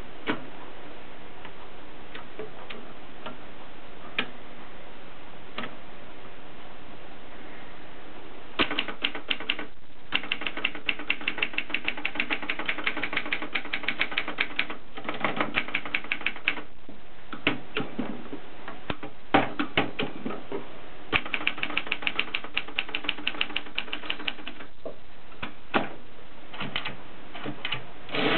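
Mercedes K45 typewriter being typed on: a few scattered key strikes at first, then from about eight seconds in, fast runs of keystrokes broken by short pauses.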